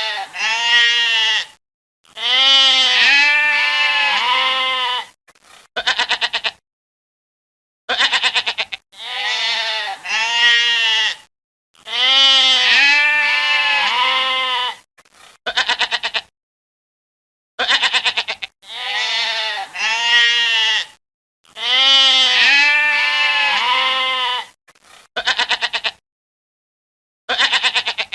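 Goat bleats strung together as a 'singing goat' sound effect: runs of wavering, pitched bleats with short silences between them, the same phrase repeating about three times.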